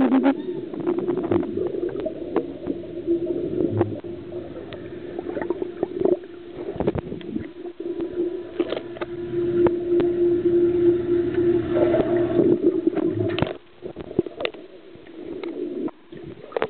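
Swimming-pool water heard underwater through a submerged camera: a steady hum with bubbling and scattered clicks. The hum cuts off about thirteen seconds in, leaving quieter bubbling.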